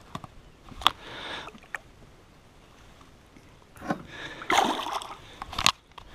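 Handling knocks in a canoe, then a splash and water sloshing about four and a half seconds in as a largemouth bass is let back into the water, with a sharp knock near the end.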